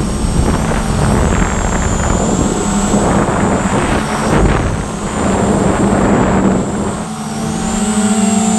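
Motors and propellers of a VISUO XS809HW toy quadcopter running with a steady hum and a high whine, heard from a GoPro 4 mounted on the drone, with gusty wind rush on the microphone. The drone is carrying a camera that the owner says is too heavy for it.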